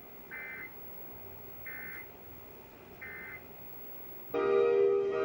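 Emergency Alert System end-of-message signal: three short bursts of warbling digital data tones about a second and a half apart, closing the test. About four seconds in, music starts abruptly and loud.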